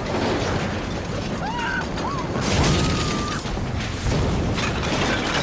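Film sound effects of a plane crash-landing through houses: a continuous din of crashing, tearing wreckage and breaking debris, with a few short squeals that rise and fall around the middle.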